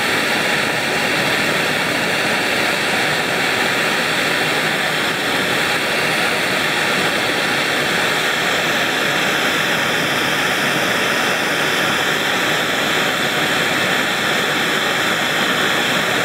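Handheld gas torch flame burning steadily, a loud, even hiss, as it burns the aluminum and other layers off a phone's titanium frame.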